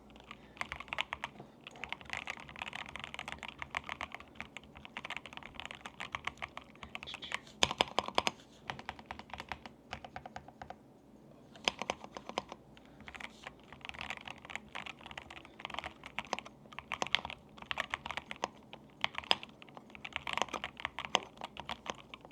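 Typing on an Epomaker RT100 mechanical keyboard with Gateron Yellow Pro linear switches: fast, continuous runs of keystrokes, with a short pause about halfway through and a few heavier strokes.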